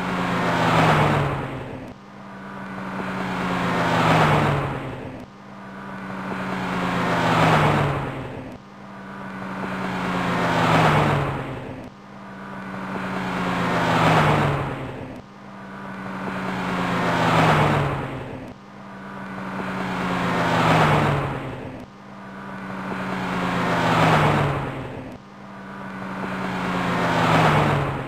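A car's engine passing by: it grows louder, dips in pitch as it goes past, then cuts off abruptly. The same pass-by repeats about every three seconds, nine times over, as a loop.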